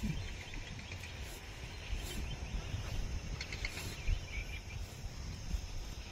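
Field ambience: faint, scattered chirping over a low, uneven rumble.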